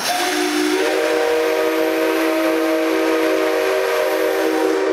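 Whistle of the C57 steam locomotive blowing one long, steady blast. It has a full chord-like tone over a rushing hiss and starts right at the beginning.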